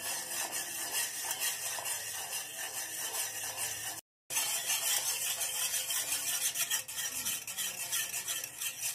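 Small wire whisk stirring a thin liquid mix of oil and milk in a stainless steel bowl, rapid and steady, with a short break about four seconds in.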